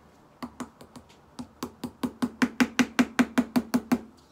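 A quick run of about twenty sharp, hollow taps, a few spaced out at first, then quickening to about six a second and growing louder before stopping near the end: a plastic feeding syringe of food paste being tapped.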